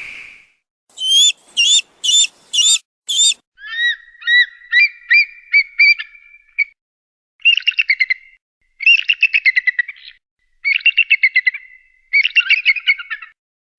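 Eagle calling with high, thin whistled notes: five short chirps, then a run of quicker piping notes, then four bouts of rapid chattering trills separated by short pauses.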